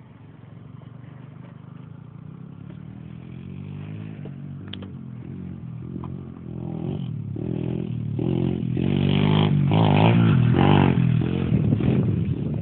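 Pit bike engine being ridden, faint at first and rising in pitch, then coming closer and revving up and down several times in quick succession, loudest about three-quarters of the way through.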